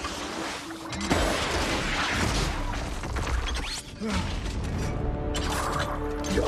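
Film sound mix of a music score over a deep underwater rumble, with muffled crashes and knocks of sinking wreckage.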